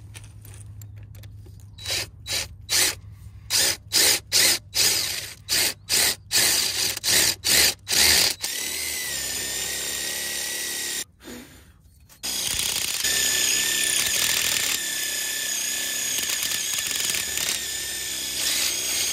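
Power drill with a concrete bit boring into a concrete pad. It starts with a string of short trigger bursts, then runs steadily, stops briefly about eleven seconds in, and drills on again.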